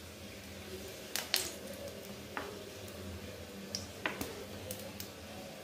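A few light clicks and taps from a spoon and a plastic oil bottle as cooking oil is spooned into a hot kadai, over a low steady hum.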